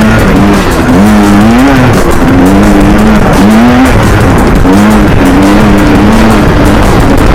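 Yamaha Banshee's 250cc twin-cylinder two-stroke engine revving hard under riding, its pitch climbing and dropping again several times as the throttle is worked.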